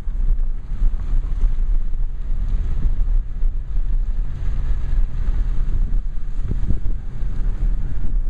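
A car driving along a street, heard from inside the cabin: a steady low rumble of engine and tyres, with wind buffeting the microphone.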